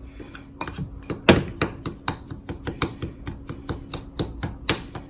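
A metal fork clinking and scraping against a ceramic bowl as it mixes a crumbly flour, sugar and butter topping: quick taps, about four or five a second. The loudest strike comes a little over a second in.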